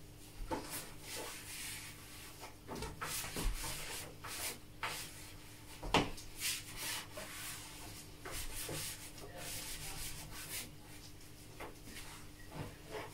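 A cloth wiping and rubbing across the glass of an open oven door in irregular strokes, with a few light knocks. The loudest knock comes about six seconds in.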